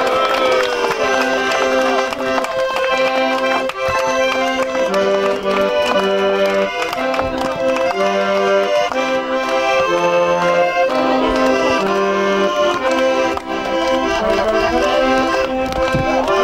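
Instrumental music: sustained melody notes over a regular, alternating bass line.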